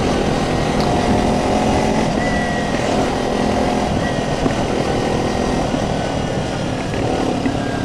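Motorcycle engine running at a steady cruise, heard on board over wind rush, with other motorcycles in a group riding just ahead. The rider's own muffler is a bit loud.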